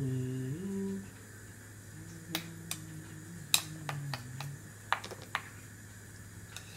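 Clear plastic bowls clicking and knocking against a plastic high-chair tray, about half a dozen sharp clicks, the loudest about three and a half seconds in. A voice hums low, steady notes in the first second and again from about two to four and a half seconds in.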